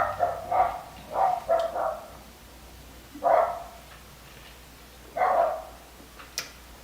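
A girl burping: a quick run of short burps in the first two seconds, then two single burps a couple of seconds apart.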